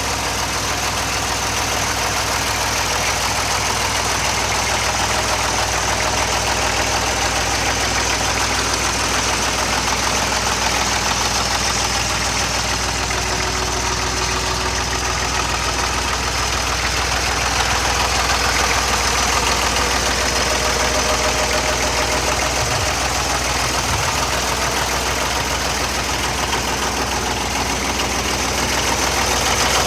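Grasshopper 928D zero-turn mower's diesel engine idling steadily.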